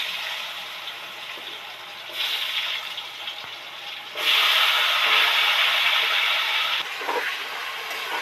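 Potato pieces dropped by the handful into hot oil in a kadai, sizzling. The sizzle surges with each drop: a short burst about two seconds in, then the loudest, lasting a couple of seconds from about four seconds in, before settling to a steady lower sizzle.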